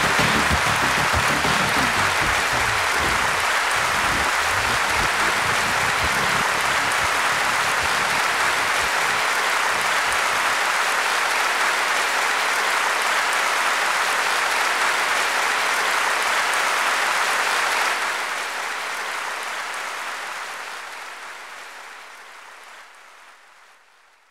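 Outro of an industrial track: the low beat dies away over the first few seconds, leaving a steady wash of applause that fades out over the last six seconds.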